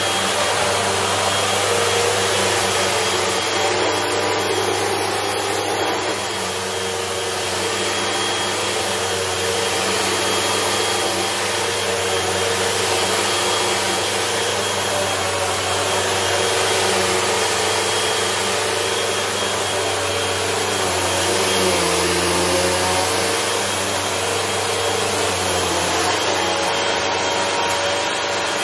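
Bagless upright vacuum cleaner running steadily as it is pushed back and forth over a rug, a constant motor drone with a thin high whine, its pitch shifting slightly as the head moves.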